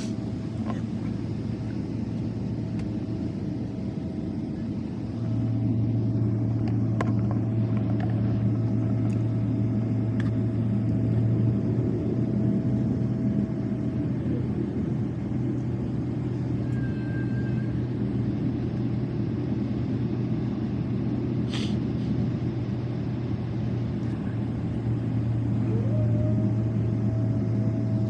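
Steady low hum of a parked airliner's cabin, with a whining tone that winds down about halfway and winds back up near the end. There is a short click about three-quarters through.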